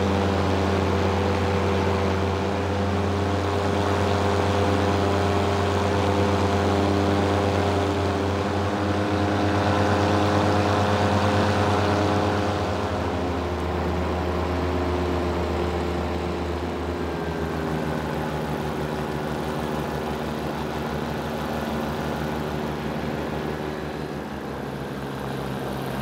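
Paramotor engine and propeller running steadily in flight, a continuous drone that drops a little in pitch and loudness about halfway through as the throttle eases.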